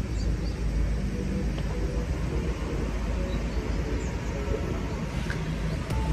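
Wind buffeting the microphone: a steady low rumble that keeps swelling and dipping.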